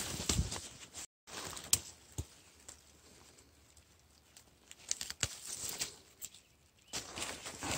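Dry leaves and twigs rustling and crackling as someone pushes through and handles forest undergrowth, with a few sharp snaps. The sound cuts out briefly about a second in.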